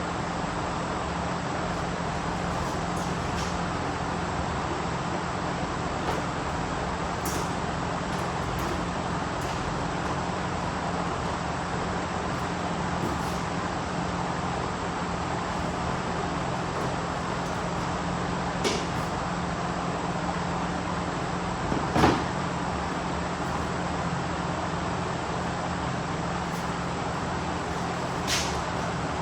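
A steady hum and noise, broken by three short sharp knocks, the loudest about two-thirds of the way through.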